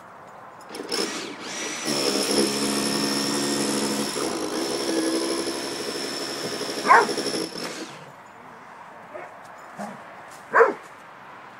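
Dogs playing: a sharp single bark about seven seconds in and another near the end. Under them, from about a second in to about eight seconds, runs a steady mechanical whine with a constant high tone.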